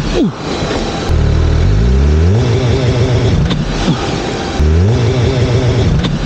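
Suzuki Hayabusa's inline-four engine being revved and launched under launch control. Its pitch climbs steeply twice as it pulls away, about a second in and again near five seconds, with a sharp drop in revs just after the start and again at the end.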